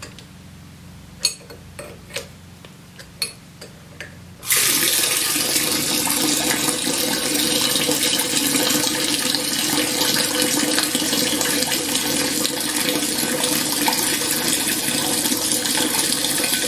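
A few sharp metal clinks from wrenches on a brass fitting, then about four and a half seconds in water is turned on and rushes through a homemade brass aspirator (water-jet vacuum pump) with a steady hissing rush as it pulls a vacuum.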